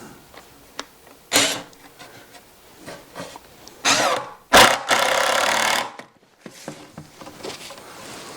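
Power driver sinking #8 by 2-inch epoxy-coated wood screws on a T25 bit into wood: a short burst about a second in, another about four seconds in, then a longer steady run that cuts off suddenly.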